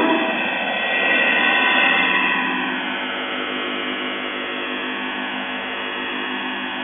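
Shortwave receiver audio from a Russian military HF channel in a break in its music loop: hissy, distorted noise with faint falling tones, then a set of steady, evenly spaced low tones from about halfway. This is CIS-12 modem audio leaking through the channel.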